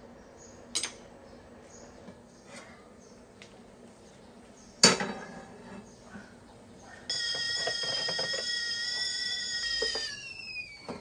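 Kitchenware clinking, with one sharp knock that rings briefly, then a high steady whine that starts suddenly, holds for about three seconds and slides down in pitch as it dies away near the end.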